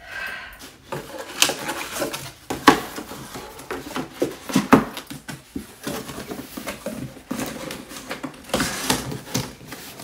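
Cardboard boxes and packaging being handled: irregular rustling and scraping broken by sharp knocks and thumps, the loudest a few seconds in, as a boxed cookware set is dragged and lifted out of its shipping carton.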